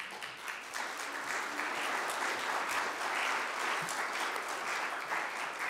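Audience applauding: many hands clapping, starting suddenly and keeping up steadily.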